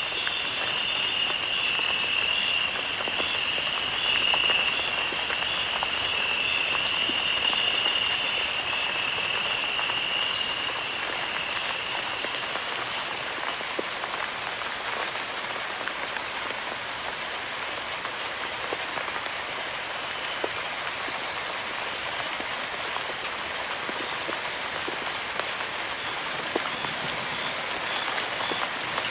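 Steady, even hiss of water with scattered small ticks. A high, steady buzzing tone sounds over it and fades out about twelve seconds in.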